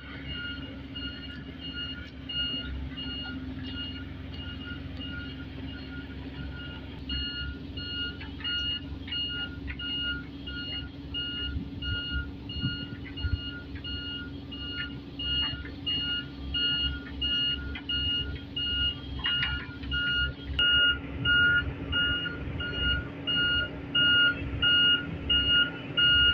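Diesel engine of a Komatsu hydraulic excavator running, with a machine's warning alarm beeping rapidly and evenly in a high tone. In the last few seconds the engine rises and falls about once a second as the excavator works.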